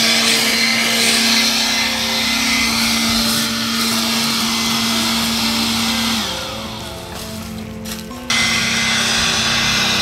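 Handheld electric leaf blower running, a steady motor whine over a rush of air, its pitch falling as the motor winds down about six seconds in. A loud steady noise returns abruptly a couple of seconds later.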